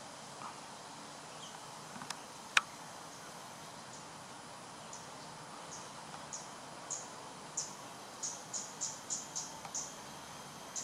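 A run of short, high chirps from a small animal, sparse at first and then about three a second in the second half, over a steady outdoor hiss. A single sharp click about two and a half seconds in is the loudest sound.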